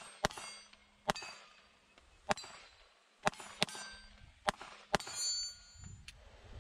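A Glock 19 Gen 5 9mm pistol fired in a string of about eight shots, spaced half a second to a second apart, some in quick pairs. Several shots are followed by a short metallic ring.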